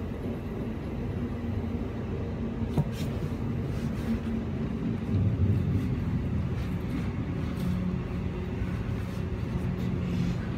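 Inside a Queensland Rail SMU 260 electric train running between stations: a steady low rumble of wheels on track with a low hum, a sharp click about three seconds in, and a louder surge of rumble around five seconds in.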